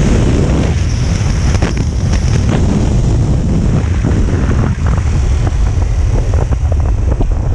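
KTM 1290 Super Adventure's V-twin engine running under way at road speed, heard through heavy wind buffeting on the microphone. The bike slows in the last couple of seconds.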